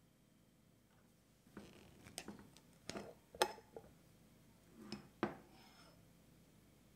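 A glass jar being handled and opened, with a series of short clicks, clinks and knocks from the jar and its lid. The sharpest knocks come about three and a half and five seconds in.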